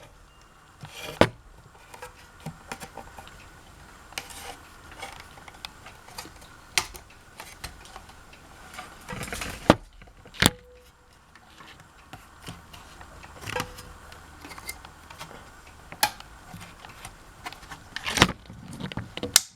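Handling noises from a Hampton Bay Quick Connect ceiling fan: scattered clicks, knocks and light metallic clinks as its parts are moved about. The loudest knocks come about ten seconds in, and two of them ring briefly.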